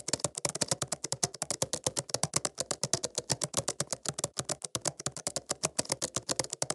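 Keyboard-typing sound effect: rapid, evenly spaced key clicks, about a dozen a second.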